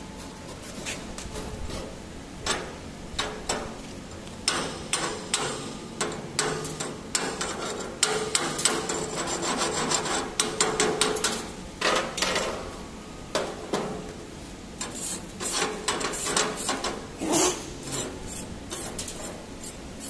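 Steel chipping hammer tapping and scraping slag off a cooled arc-weld bead on a steel plate, many quick strikes. Near the end a wire brush scrubs the weld clean.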